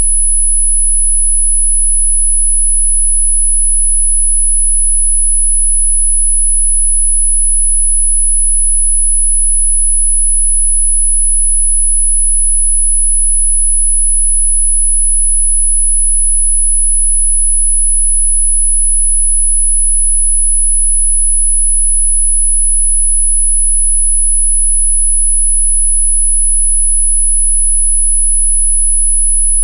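A steady, high-pitched pure tone, a 'healing frequency' played for hiccups, holding one unchanging pitch throughout, with a faint low hum beneath it.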